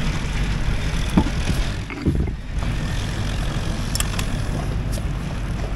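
Steady low rumble, with a few light knocks and then two sharp metallic clicks about a second apart near the end: hand tools working a freed screw out of a sailboat's deck winch.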